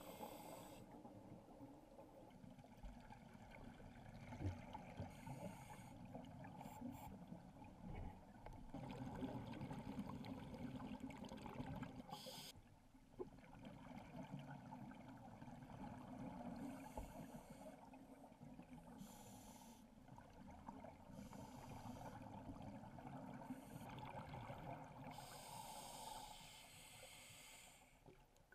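Faint, muffled underwater sound through a GoPro housing: a steady low water rumble broken every few seconds by short hisses of scuba breathing and exhaled bubbles, with a longer burst near the end.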